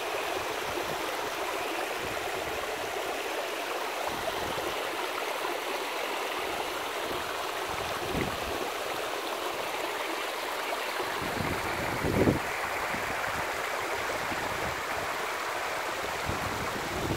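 Shallow water running and splashing over rocks in a small stream: a steady, even rush. A low thump sounds about twelve seconds in, with a fainter one a few seconds earlier.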